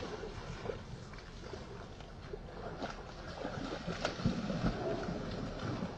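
Wind rumbling on the microphone, with light splashing of water from a dog swimming in a pond.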